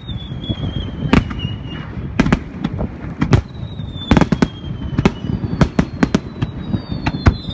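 Aerial fireworks bursting in a rapid, irregular run of sharp bangs, several a second at times. Thin high whistles fall slowly in pitch over a second or two.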